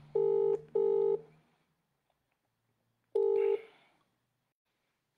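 Australian-style telephone ringback tone, heard from the caller's side while the called phone rings unanswered. It comes as a double ring of two short tones close together, then a third tone about two seconds later.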